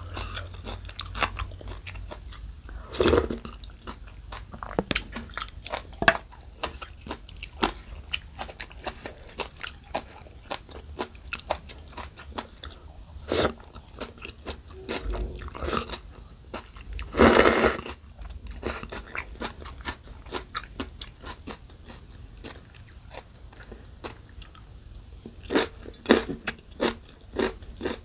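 Close-miked eating: crisp crunching and chewing of bean sprouts and young radish kimchi with thin noodles, with noodles slurped from chopsticks. There are many short, sharp crunches, a few louder ones, and a quick run of them near the end.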